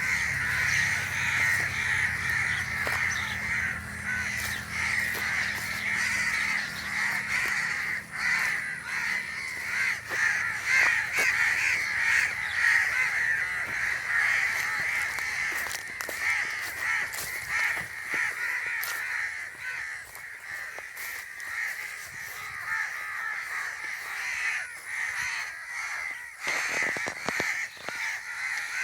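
A flock of crows cawing continuously, many calls overlapping into a dense, unbroken chorus that swells and dips.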